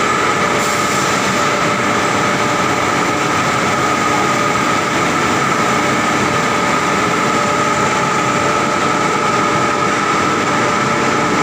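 Hot rolling mill for TMT steel bars running: a continuous, loud drone of roll stands at work with a steady whine through it.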